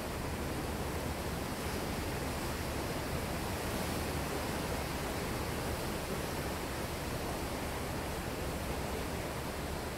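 Sea waves breaking and washing over a rocky shore shelf: a steady, even rush of surf.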